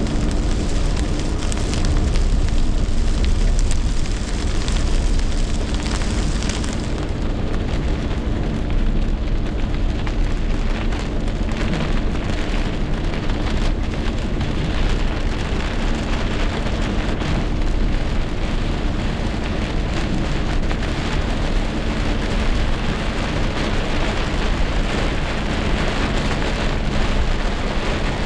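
Heavy rain pouring down steadily in a rainstorm, as an even, unbroken rush.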